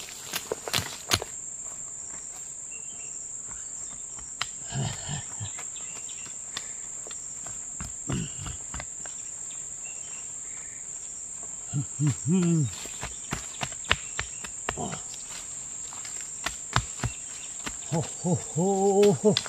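Steady high-pitched drone of insects, with scattered clicks and rustles of leafy plants being picked by hand. A person's voice sounds briefly about twelve seconds in and again near the end.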